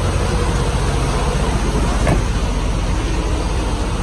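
Steady rumbling vehicle noise from idling trucks, with a single sharp knock about two seconds in.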